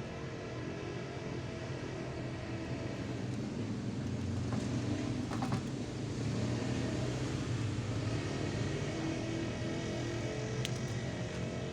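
A vehicle engine running steadily, a low hum that grows a little louder a few seconds in, with a few faint clicks.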